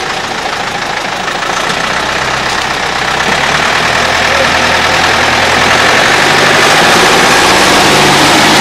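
Boat's outboard motor running amid loud rushing water, the whole sound growing steadily louder, as the boat pushes through river rapids.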